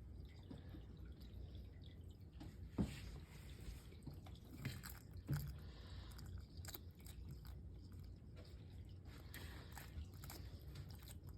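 Bearded dragon eating beetle grubs: faint, irregular wet smacking and clicks of its jaws as it chews. A few louder clicks come about three and five seconds in.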